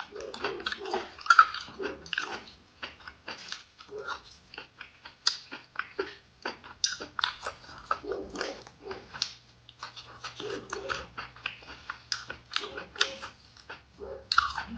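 Close-up eating: a person chewing and lip-smacking a mouthful of crisp pan-fried pork intestine with kimchi, with many quick, irregular wet smacks and crunches.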